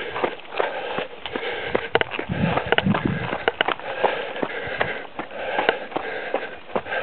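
A trail runner's hard breathing and footfalls on a dirt path, the steps coming as a quick run of short thuds.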